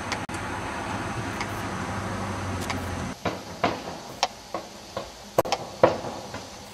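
A steady low rumble that cuts off abruptly about three seconds in. Then footsteps click on a hard path, about two a second, unevenly loud.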